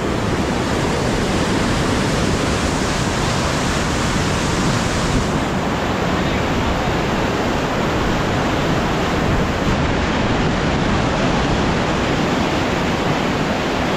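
White water rushing steadily over a concrete weir spillway into the river below.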